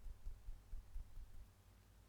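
Fingertips tapping the edge of the palm (the EFT karate-chop point): soft, faint taps, about six a second, that stop about a second and a half in.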